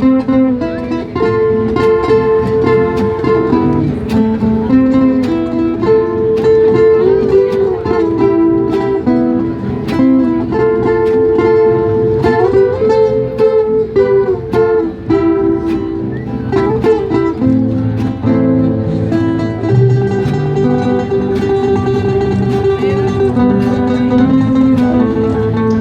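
Instrumental music led by a plucked guitar, a dense run of picked notes over low bass notes.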